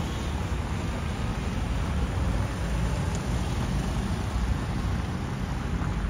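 Steady outdoor noise with a strong, uneven low rumble and no clear single event.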